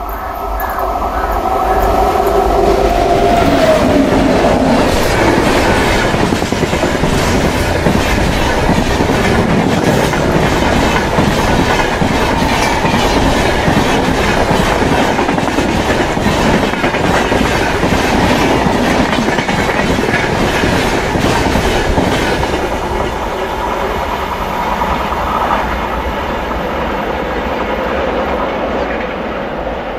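An Indian Railways passenger train hauled by a WAP-7 electric locomotive passes at speed. A falling whine is heard in the first few seconds as the locomotive goes by. Then comes a long, loud, steady clickety-clack of the coaches' wheels over the rail joints, which fades in the last several seconds as the train pulls away.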